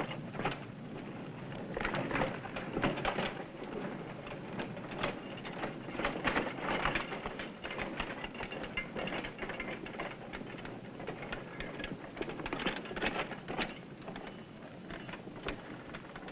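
Rock and rubble clattering and scraping as miners dig with hand tools and load it into an ore car, a dense, irregular run of knocks.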